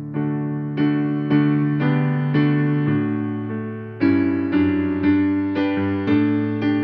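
Piano playing a slow hymn tune as accompaniment, chords struck about twice a second and left to ring and fade, with one longer held chord just past the middle.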